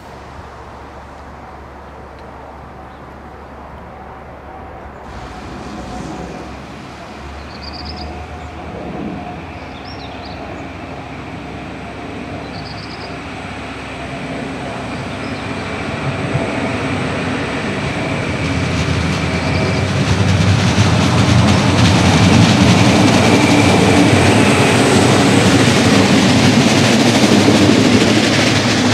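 DB Class 628 diesel railcar moving off and running along the line, its diesel engine and wheels on the rails growing steadily louder as it comes closer. It is loudest over the last several seconds.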